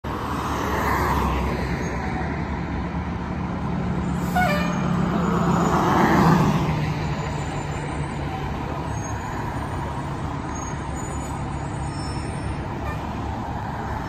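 Fire trucks' diesel engines idling with a steady low hum, while cars pass on the road, swelling and fading about a second in and again around six seconds. A short pitched toot sounds about four seconds in.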